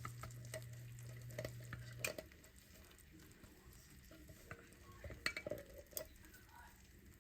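Canned tomatoes going into a pot of browned ground beef and beans, with scattered light clinks and scrapes of can and spoon against the pot over a faint sizzle. A steady low hum stops about two seconds in.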